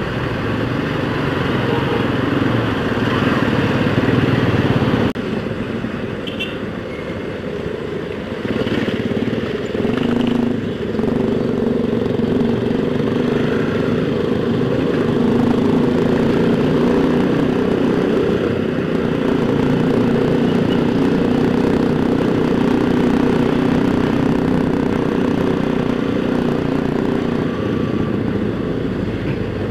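Motorcycle engine running steadily under way, heard from on the bike. The sound shifts abruptly about five seconds in.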